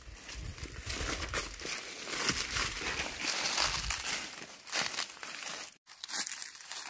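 Footsteps crunching and rustling through dry leaf litter and undergrowth, an irregular crackle, cut off briefly by a moment of silence near the end.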